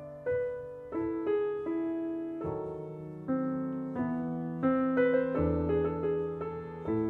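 Slow piano music. Single notes and chords are struck every half second to a second, each left to ring and fade.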